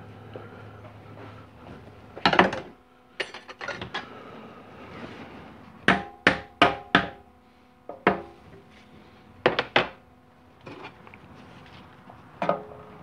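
Hammer striking metal on a 4L60e automatic transmission during teardown: sharp metallic taps in short clusters, four quick blows in about a second near the middle and three more a few seconds later, several ringing briefly.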